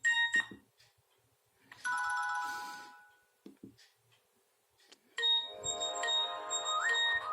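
Nokia mobile phone playing short ringtone previews one after another through its small loudspeaker. A tone cuts off just after the start, a brief ringing chime follows about two seconds in, and a fuller polyphonic melody starts about five seconds in, with faint clicks between them.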